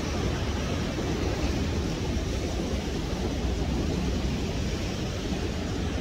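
Steady rush of ocean surf breaking on the shore, with a low rumble underneath.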